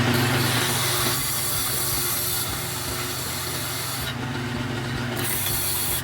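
Bench belt and disc sander motor running with a steady hum while a piece of wood is sanded against the spinning disc, giving a loud abrasive hiss. The sanding hiss stops about four seconds in and starts again about a second later, while the motor runs on.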